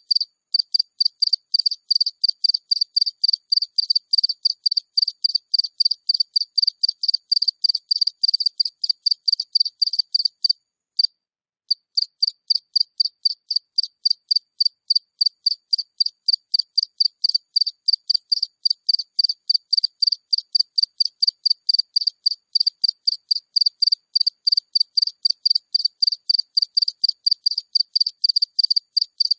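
A single cricket chirping close up: a high-pitched, evenly repeated chirp about three to four times a second, with clean silence between chirps. It breaks off for about a second a third of the way in, then resumes at the same pace.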